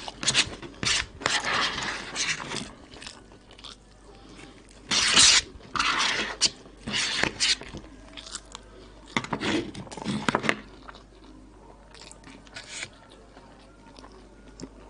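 Close-up eating sounds of koshari: a plastic spoon scraping and scooping in a paper bowl, with wet chewing and crunching in repeated bursts for about the first ten seconds, then only a few faint clicks.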